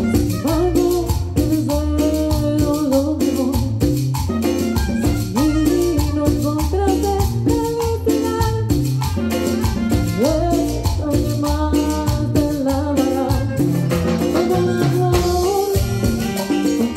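Live Latin dance band playing with congas, timbales, bass, keyboard and a metal shaker keeping a steady rhythm, while a reed instrument plays a wavering melody over it.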